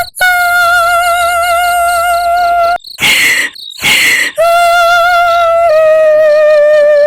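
Ghostly female wailing sound effect: long held, wavering high cries, broken twice by breathy rushes about three and four seconds in, with the last cry slowly sinking in pitch. Crickets chirp steadily underneath.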